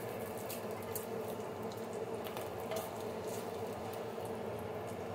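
Bacon sizzling in a frying pan, a steady crackle with scattered small pops of fat, over a steady low hum.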